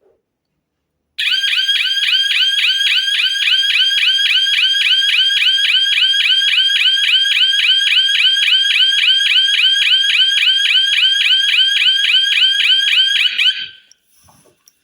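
Wireless electronic alarm hooter (siren) sounding a loud, high-pitched rapid warble of about five pulses a second. It starts about a second in and stops sharply about a second before the end. It is sounding because it has just paired with the alarm receiver and been triggered.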